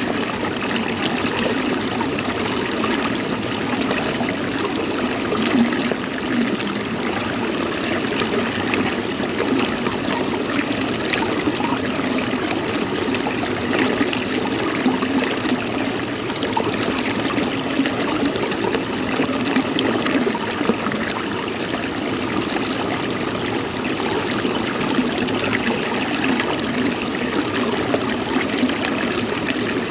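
Running water trickling steadily, a continuous splashing flow with no change in level.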